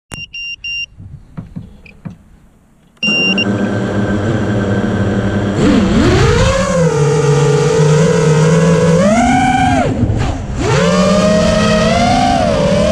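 6-inch FPV quadcopter's Hobbywing 2405 2250kv brushless motors with three-blade 6-inch props, heard from an onboard camera. A few short electronic beeps and clicks come first. About three seconds in, the motors start to a steady whine, then rise and fall in pitch with the throttle, drop sharply for a moment near ten seconds and spin back up.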